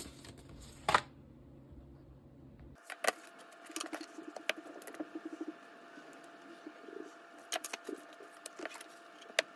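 Leatherworking at a bench: scattered sharp clicks and taps of tools and hardware, with soft rustling as leather is handled. For the first few seconds a low steady hum with one sharp click runs underneath, then it cuts off abruptly.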